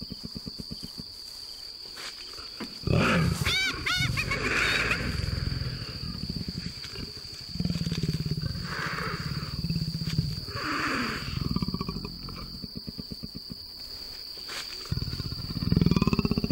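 Leopard growling and snarling at a spotted hyena over its kill, in long runs of low, rasping, pulsed growls. A run of high, wavering cries comes about three seconds in.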